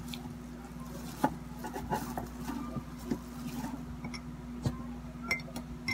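Clear plastic bag crinkling and rustling as pieces of bread are picked out of it, with irregular small crackles and a few sharper taps. A faint steady hum runs underneath.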